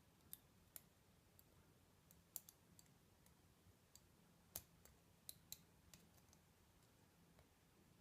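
Faint, sharp metallic clicks at irregular intervals from a lock pick working the pin tumblers of a 4-pin 40 mm EGRET padlock during single-pin picking, the loudest about two and a half and four and a half seconds in.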